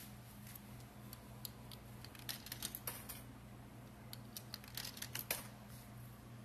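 Coins being pushed into a claw machine's coin slot: two quick clusters of small metallic clicks and clinks, over a steady low hum.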